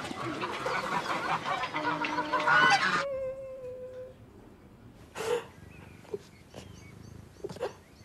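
A flock of geese honking, busy and overlapping, cut off abruptly about three seconds in. What follows is much quieter: a brief held tone and a few faint short sounds.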